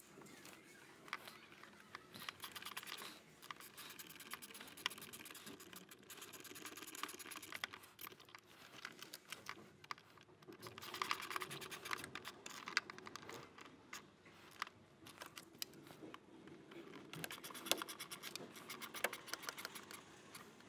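Faint, irregular clicking and scratching of a hand tool tightening the hose clamps on a BMW 128i's intake air duct.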